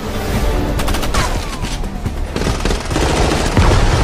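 Rapid automatic gunfire: a dense fusillade of overlapping shots, with a falling whine about a second in.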